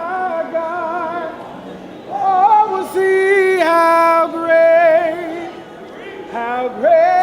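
Singing in a church service: voices holding long, slightly wavering notes, with short breaks between phrases about two seconds in and again about six seconds in.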